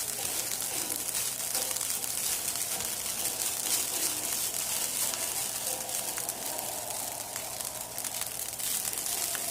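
Fried rice with egg, peas and carrots sizzling in a hot pan: a steady crackling hiss.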